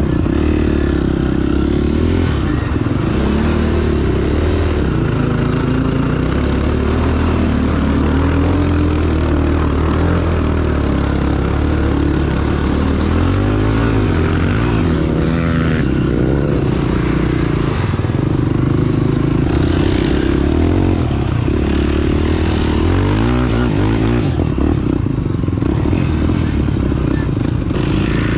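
Off-road vehicle's engine running steadily while driving a trail, its pitch rising and falling several times as it speeds up and eases off, most clearly around the middle and again near the end.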